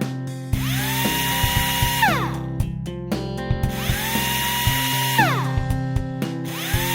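Power drill whirring: it spins up to a steady whine, holds for about a second, then winds down, three times in a row, over background music with a steady beat.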